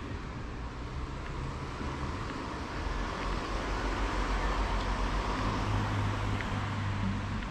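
Street traffic: a car passes, its tyre and engine noise swelling over the middle seconds and easing off near the end, over a steady low rumble.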